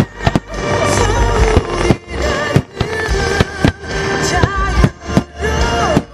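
Music with a sliding melodic line, over repeated sharp bangs of aerial fireworks shells bursting several times a second.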